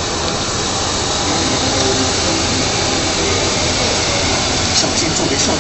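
Compact ride-on floor scrubber-dryer running as it drives over a floor mat: a steady whir and hiss from its brush and vacuum motors, with a few light ticks near the end.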